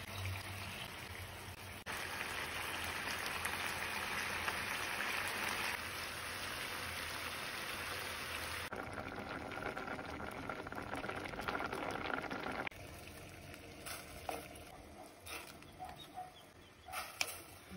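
Food sizzling and simmering in a frying pan, pork chops in a dark sauce at first, a steady bubbling hiss that changes abruptly several times and drops lower about two-thirds of the way through. A few short knocks come near the end.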